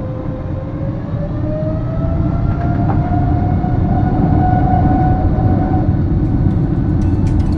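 Boeing 777-300ER's GE90 jet engines spooling up, heard from the cabin: a heavy rumble under a whine that rises slowly in pitch and grows louder.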